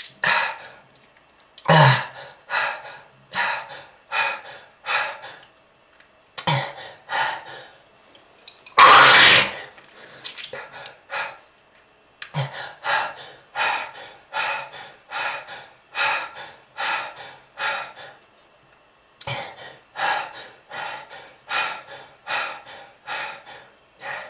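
A smoker coughing in long fits: short coughs one after another, about one or two a second, broken by brief pauses, with one longer, harsher and louder burst about nine seconds in.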